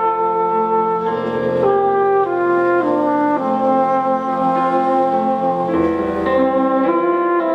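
Brass band music with trumpet, playing a slow passage of held chords that change about once a second.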